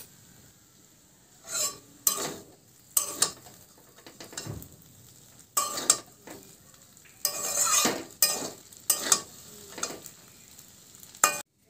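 Metal tongs tossing and stirring chow mein noodles in a metal kadai, scraping and knocking against the pan in about ten irregular strokes, with a faint sizzle from the hot pan between them.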